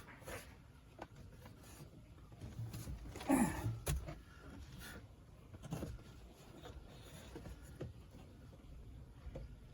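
Faint handling noises: light knocks and rustling, with a louder scrape and a sharp click about four seconds in.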